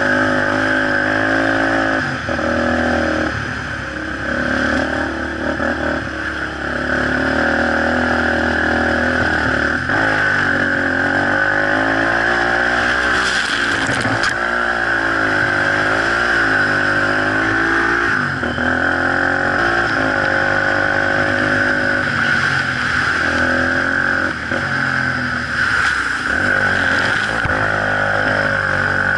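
Enduro motorcycle engine running hard on a dirt trail, its pitch repeatedly rising and falling as the rider works the throttle and gears.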